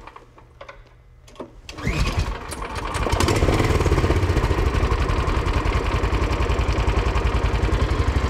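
The Rokon Ranger's single-cylinder Kohler engine is pull-started on its recoil starter. A short rising pull comes about two seconds in, the engine catches, and it settles into a steady idle with a quick, even beat.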